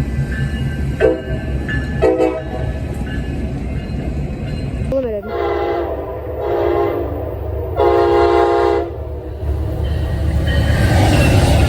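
Locomotive air horn sounding a chord: two short toots about a second apart, then three longer blasts a few seconds later. A steady low rumble of the moving train runs underneath and grows louder near the end.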